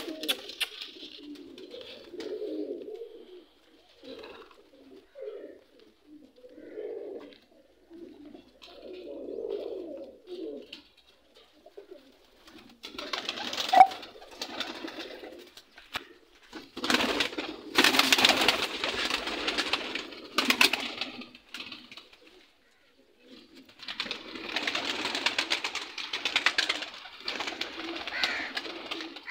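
Domestic pigeons cooing over and over in low, throaty coos. About halfway through and again near the end come louder stretches of rushing noise.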